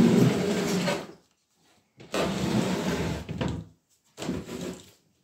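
Wooden crates scraping across a tiled floor as they are shifted, in three drags, the last one short.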